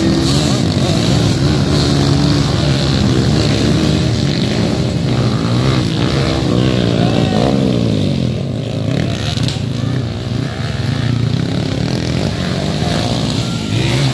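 A pack of racing dirt bikes and four-valve underbone motorcycles accelerating hard off the line, several engines revving up and down over one another. The engines ease off a little about two-thirds of the way through as the pack pulls away.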